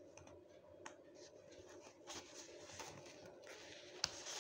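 Faint rustling and light clicks of pens and small items being rummaged through inside a pencil case, with a sharper click about four seconds in.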